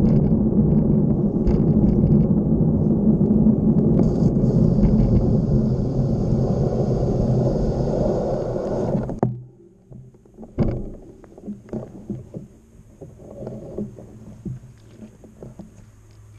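Wind rushing over the microphone of a moving bike, a loud low rush that stops suddenly about nine seconds in as the bike halts. After that there is only a faint low hum with scattered light knocks.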